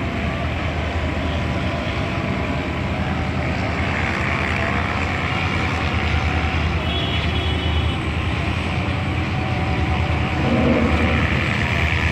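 Steady low drone of an approaching diesel-electric locomotive, mixed with road traffic, growing slowly louder as the train draws nearer.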